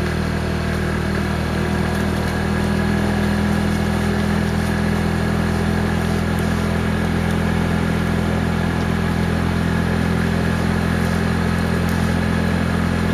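A vehicle engine running at a steady, low speed while driving slowly along a road: an even low drone with no change in pitch.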